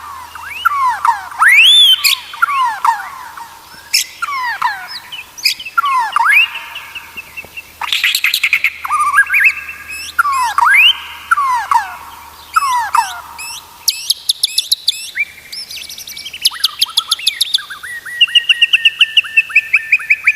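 White-rumped shama (murai batu) singing loud, varied whistled phrases of sweeping up-and-down notes, with a fast run of short repeated notes near the end.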